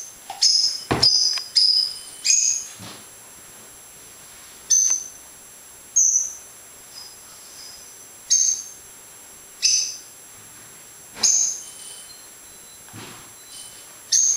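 A bird chirping again and again: short, high chirps every second or two. A couple of sharp knocks come in the first few seconds.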